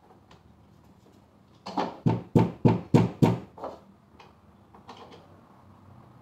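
A quick run of about eight knocks on the wooden panels of a bed being assembled, about three a second, the last ones weaker, followed by a few faint clicks.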